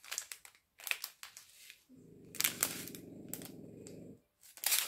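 A dog snoring: one long, low snore starting about two seconds in and lasting about two seconds. Plastic zip bags of diamond-painting drills crinkle briefly before and after it.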